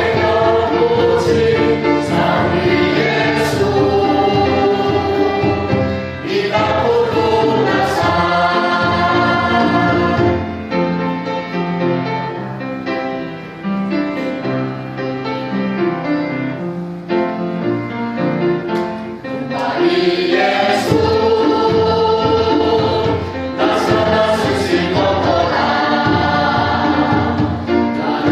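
A church congregation singing a hymn together, many voices in chorus. The singing is softer for a stretch in the middle.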